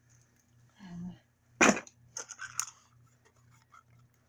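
Plastic toy packaging being handled and torn open: one loud crinkling rip about a second and a half in, then smaller crinkles and clicks.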